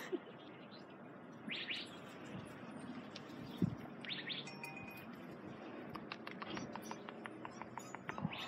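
Small birds chirping a few short, quick phrases over a faint rustle. A single sharp knock about three and a half seconds in is the loudest sound, and a run of light clicks follows near the end.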